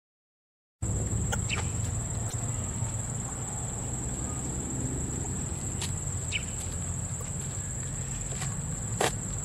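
After a moment of dead silence, outdoor ambience cuts in: insects keep up a steady high-pitched whine over a low rumble. A few faint clicks sound, with a sharper click near the end.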